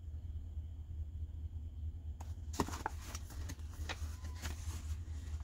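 Paper pages of a book rustling and crinkling as they are handled, starting about two seconds in with a few sharp clicks, over a steady low hum.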